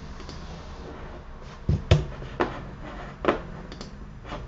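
A handful of short knocks and clicks, the loudest pair about two seconds in, over a steady low room hum.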